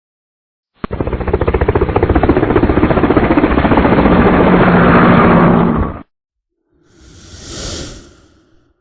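Two sound effects in a row. First, a rapid, steady pulsing rattle lasting about five seconds that stops suddenly. Then a short whoosh that swells and fades.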